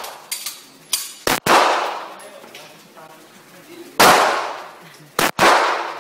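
Gunshots at an indoor shooting range: several loud reports, the biggest about a second and a half in, four seconds in and twice in quick succession near the end, each ringing out with a long echo off the range walls.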